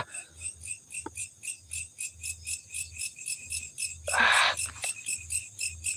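Crickets chirping in a steady rhythm, about four pulses a second, over a low pulsing hum. A short, loud noisy burst comes about four seconds in.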